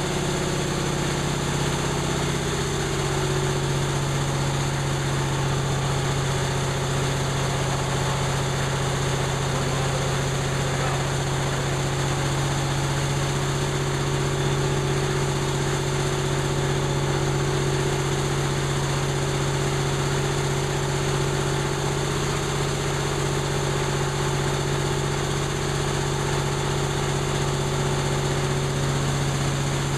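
Freshly overhauled 1930 Atlas Diesel monoblock compressor, type C2DKV, running steadily. Its running note drops a little about two to three seconds in, then holds even.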